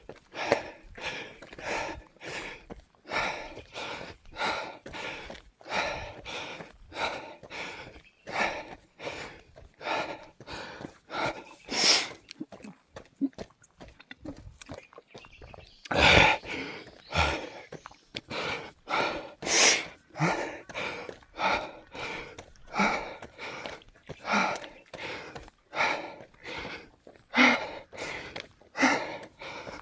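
A person breathing hard and panting, short noisy breaths a little more than once a second, winded from running up a mountain trail.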